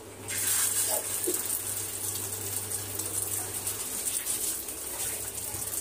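An egg-dipped kabab sizzling in hot oil in a flat pan. The sizzle starts suddenly as the kabab is laid in, then carries on as a steady hiss.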